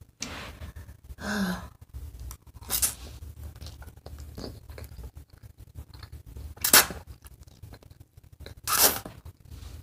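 A person slurping spaghetti strands, three loud slurps with the loudest about two-thirds of the way in, and softer chewing and mouth sounds between. A short hummed 'mm' comes about a second in.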